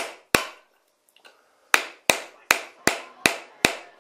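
Hammer blows: two quick strikes, a pause of about a second and a half, then a steady run of strikes about two and a half a second, each sharp with a short ringing tail.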